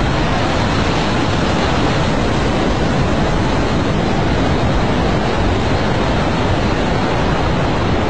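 Steady, loud rushing of tsunami floodwater churning and surging through a bay.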